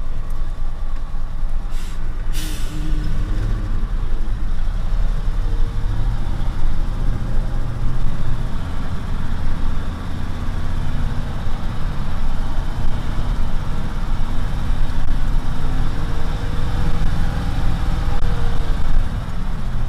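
Vehicle engine running while driving, a steady low drone that rises and falls in pitch. A short hiss comes about two seconds in.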